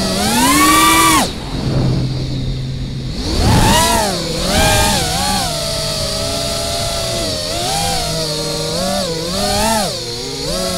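FPV quadcopter's brushless motors whining, the pitch rising and falling with the throttle: a swell at the start, a low steady hum about two seconds in, then a run of quick climbs and dips.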